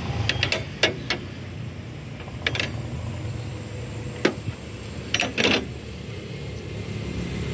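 A few light metallic clicks and clinks from a wrench and battery terminal clamp as a car battery's terminal is loosened and pulled off, with a short rattle just after five seconds in.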